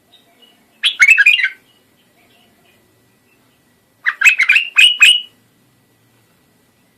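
White-eared bulbul (the 'Iraqi bulbul') singing: two short bursts of quick, rich whistled notes, one about a second in and a longer one about four seconds in.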